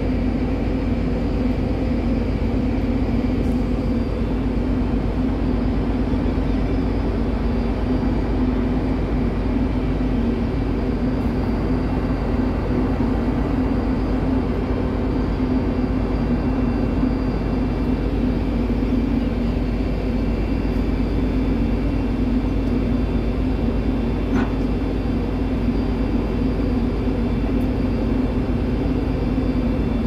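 Steady drone of a moored ferry's machinery: a low hum with a few held tones over a rumble, unchanging.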